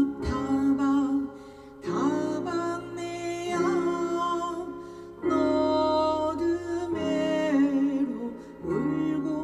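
A small ensemble playing a slow arrangement of a Korean folk song: a melody with wavering vibrato over plucked strings, in several separate phrases.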